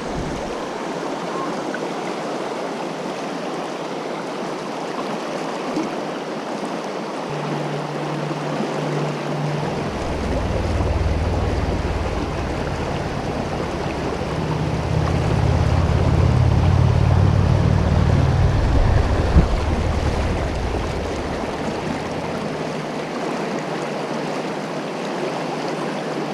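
Fast river current rushing over rocky rapids, a steady, even noise; the river is running high after heavy rain. A low rumble comes in under it about a quarter of the way in, is strongest in the middle and fades out some seconds before the end.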